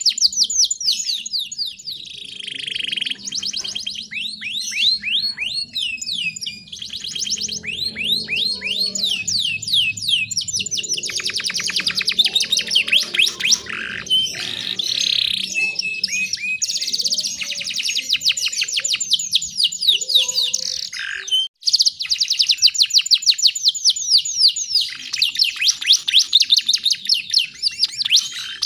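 Domestic canary singing long runs of rapid trills, many quick downward-sweeping notes a second, high-pitched, with a brief break about three-quarters of the way through.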